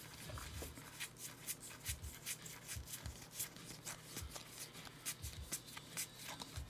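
A stack of 2018 Topps WWE trading cards being thumbed through one by one in the hands: a faint, quick, irregular run of light card-edge flicks and slides.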